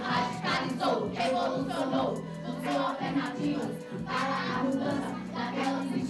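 Music with voices singing together over a steady low held accompaniment.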